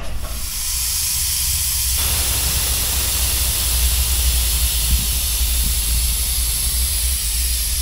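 Long, steady hiss of escaping compressed air, over a low steady hum.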